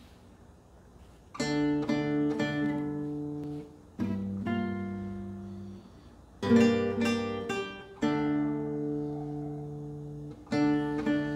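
Acoustic guitar playing slow strummed chords, each left to ring out before the next, starting about a second in.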